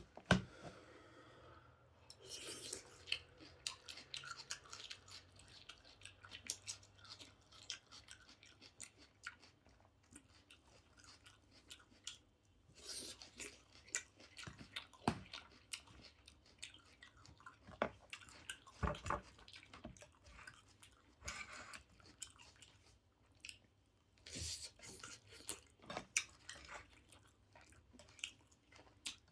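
A person chewing and crunching food close to the microphone, as in a mukbang, in irregular clusters of crisp, wet clicks with short pauses between mouthfuls.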